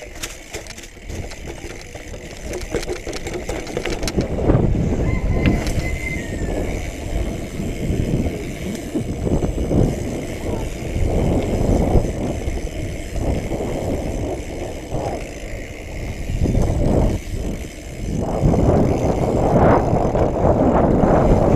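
A BMX bike rolling over cobblestones: a continuous rough rumble and rattle of the tyres on stone. It gets louder from about four seconds in and again near the end.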